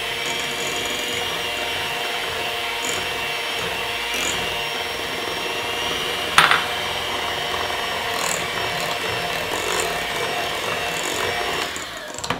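White electric hand mixer running steadily with a steady motor whine, its beaters churning powdered sugar into softened cream cheese in a glass bowl. One sharp knock about halfway through, and the mixer stops just before the end.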